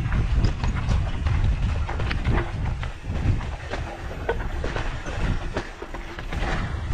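Mountain bike rattling over a rough trail: irregular clicks and knocks over a low rumble of wind on the microphone.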